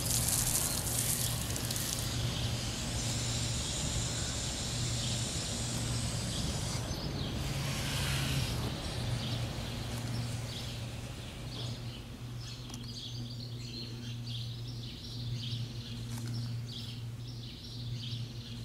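Outdoor ambience: a steady low hum with background noise, and small birds chirping again and again through the second half.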